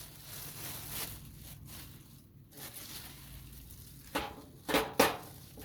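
Handling noise: faint rustling, then three short, sharp knocks or clicks near the end.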